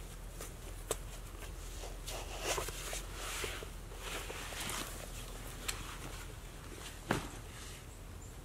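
Footsteps and rustling on dry forest ground, with a few sharp clicks, one about a second in and a louder one near the end.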